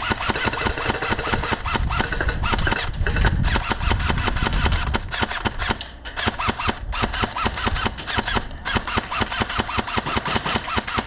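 Airsoft guns firing rapid full-auto bursts, a dense stream of fast clicks that goes on almost without a break and dips briefly twice.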